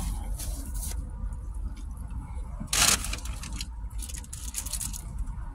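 Paper food wrapper crinkling and rustling in hand, in scattered short crackles, with one brief louder burst of noise about three seconds in, over a steady low hum.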